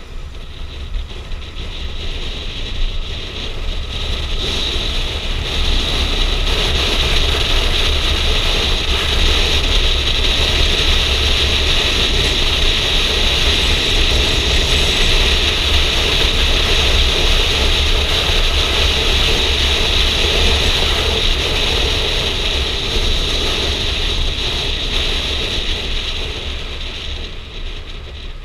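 Wind rushing over a helmet-mounted camera while riding a Kawasaki motorcycle, with the bike's engine and road noise underneath. It grows louder about five seconds in, holds steady, and eases off near the end.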